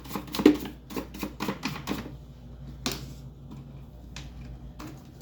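A small brush scrubbing dust off the plastic parts of an electric fan: a quick run of short scratchy strokes and clicks for about two seconds, then a few separate taps.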